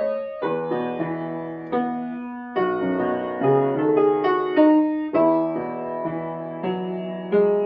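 Piano music: slow chords struck one after another, each left to ring and fade before the next.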